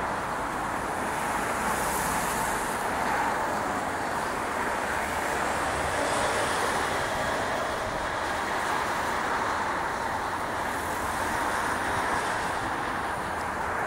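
Steady noise of road traffic, cars and a bus passing on a busy road, with no single vehicle standing out.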